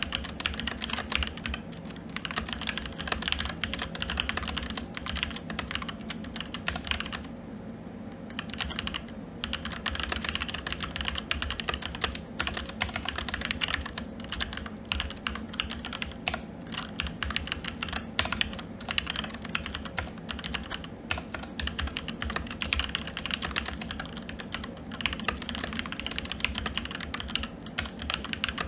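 Continuous fast typing on a SteelSeries Apex 7 TKL mechanical keyboard with red linear switches: a dense run of key clacks, with a brief pause about seven seconds in.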